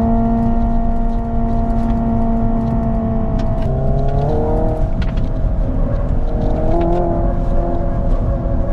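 Hyundai IONIQ 5 N's simulated engine sound heard inside the cabin: a steady engine-like drone whose pitch steps and glides about four seconds in and changes again near seven seconds, like the simulated gear shifts. Low road rumble runs underneath.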